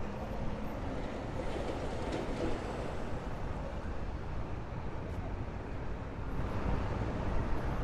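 Steady low rumble of heavy passing traffic, swelling a little near the end.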